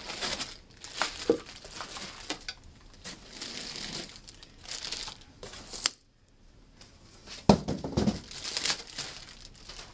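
Plastic packaging bags crinkling and rustling as bagged cables, a power brick and a monitor are handled and lifted out of a cardboard box, with scattered knocks. A sharp click comes about six seconds in, then a brief lull and a loud knock.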